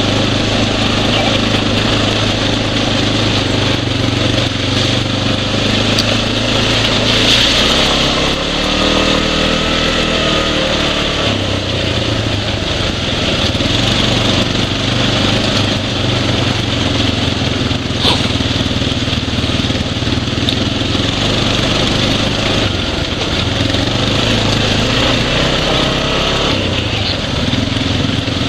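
Single-cylinder four-stroke ATV engine running under way, its pitch dipping and climbing again about ten seconds in, with a steady hiss over it.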